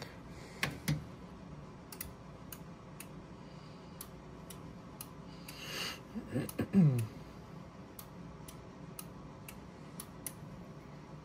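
Faint, sharp ticking clicks, about two or three a second and not quite even, in a quiet room. A brief low voice sound comes just past the middle.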